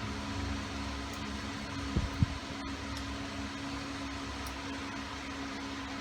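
Steady machine hum with a constant low tone, like a running fan, and two short low thumps close together about two seconds in.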